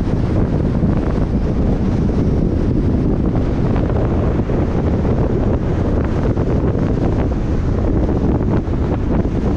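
Steady wind noise buffeting the microphone of a camera on a moving car, a low rumble mixed with the car's road noise.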